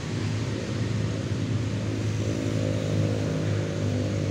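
Road traffic: a motor vehicle engine running steadily, its hum growing a little stronger about halfway through.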